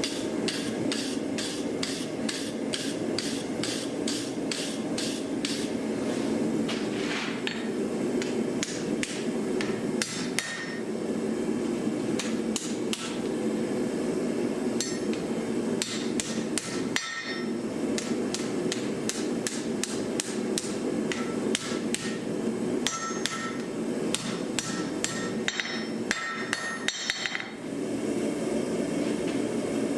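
Hand hammer striking hot iron on an anvil while forging a knife blade: runs of blows at about two to three a second, with short pauses between runs, over a steady low rumble.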